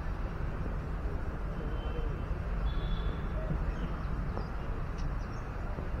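Open-air ambience: a steady low rumble of wind on the microphone, with faint distant voices and a few faint high chirps partway through.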